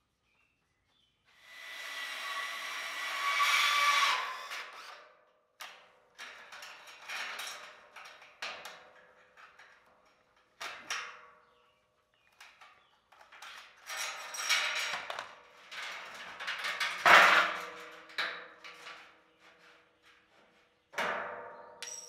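Steel pallet-rack frame parts being handled on a concrete floor: a series of clanks and scrapes with metallic ringing, in separate bursts broken by short silences, the sharpest clank about two thirds of the way through.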